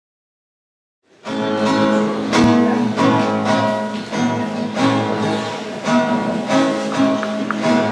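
Solo acoustic guitar playing a picked introduction, starting about a second in after silence.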